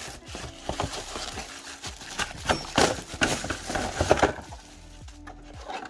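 Fire alarm packaging handled and opened by hand: a run of crinkling, rustling and scraping, loudest in the middle couple of seconds, that dies down near the end.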